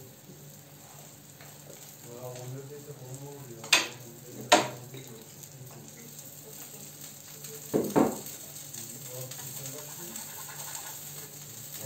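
Flatbread (bazlama) frying in a pan on a gas stove with the heat turned down, a steady low sizzle. Two sharp knocks come about four seconds in, and a duller thump about eight seconds in, as a bottle and a wooden spatula are handled around the pan.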